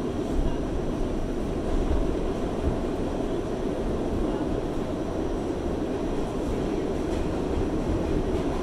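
New York City subway B train running through a tunnel, heard from inside the car: a steady rumble of wheels on rail and traction motors at an even level.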